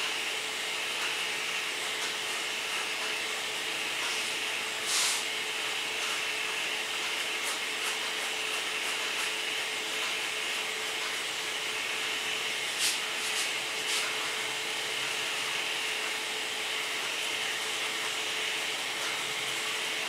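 Steady whooshing background noise with a faint steady hum, broken by a few brief soft clicks.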